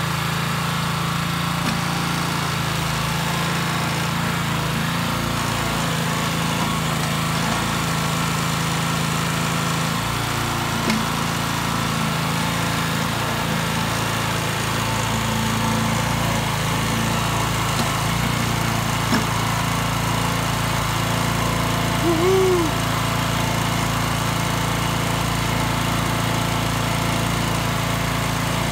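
Small gas engine on a Harbor Freight towable trencher running steadily and powering its hydraulics while the digging arm is worked with the control levers. Its note changes slightly about ten seconds in, and a brief squeak rises and falls about two-thirds of the way through.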